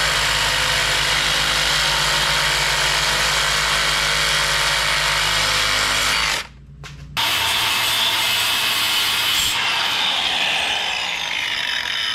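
Compact cordless reciprocating saw cutting through a soft aluminum mounting bracket, running steadily, with a short pause about six seconds in before it cuts on.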